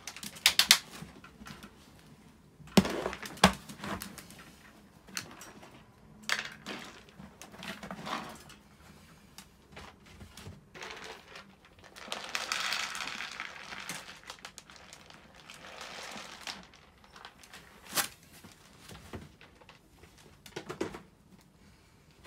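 Handling noises around wire dog crates: scattered sharp knocks and rattles, the loudest a few in the first four seconds, and a longer crinkling rustle about twelve seconds in.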